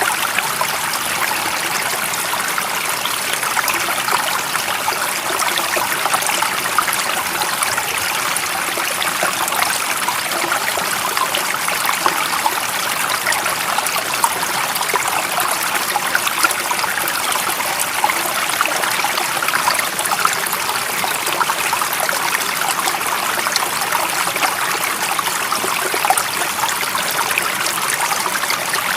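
A stream of water flowing steadily, an even running-water noise full of small trickles and splashes.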